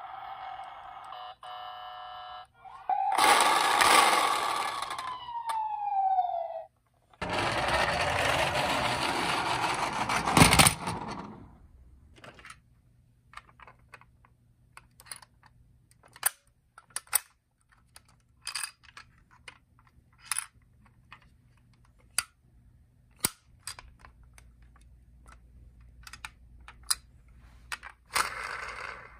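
Toy ambulance sound effects: a steady electronic siren tone from a toy's sound unit, then a loud tone sliding down in pitch, then several seconds of loud rushing noise. After that come scattered light clicks and taps of plastic toys being handled, with a short burst of noise near the end.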